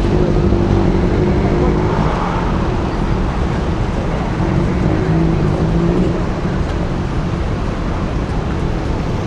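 Steady city road traffic noise, with a low steady hum that fades about six seconds in.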